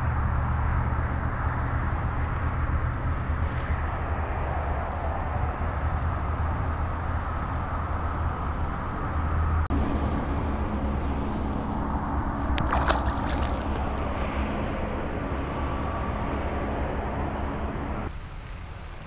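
Steady low rumble and rustling noise on a body-worn camera's microphone, changing abruptly about halfway through and again near the end. A short crackle of clicks comes about two-thirds of the way in.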